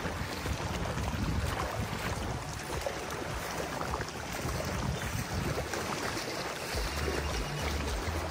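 Water lapping and splashing as people swim in an ocean pool, with wind gusting on the microphone.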